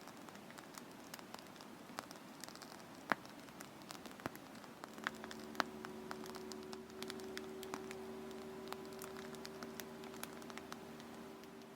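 Shaving foam crackling: many tiny bubbles popping in faint, irregular ticks and pops. A steady low hum comes in about five seconds in.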